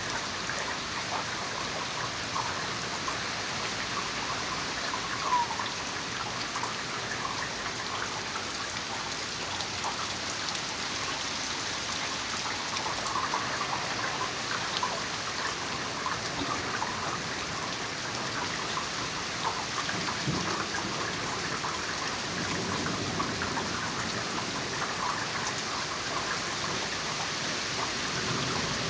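Steady rain falling and pattering on wet surfaces, light at first with the storm's heavier rain still coming, and one slightly louder tap about five seconds in.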